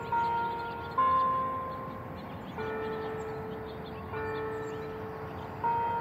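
Church bells playing a slow tune, one note at a time. Each note is struck at a different pitch about every second or second and a half and rings on, fading until the next.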